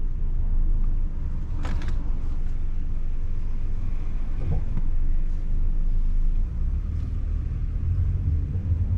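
Steady low rumble of a car on the road, heard from inside the cabin, with a short sharp noise about two seconds in.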